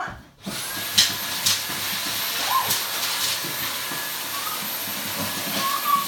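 An electric appliance motor switches on about half a second in and runs steadily with a thin high whine. A yellow-headed Amazon parrot gives a short call over it in the middle and a few falling calls near the end.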